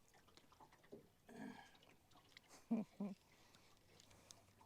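Mostly quiet, with a short murmur and then two brief vocal sounds in quick succession near the middle, and a few faint clicks.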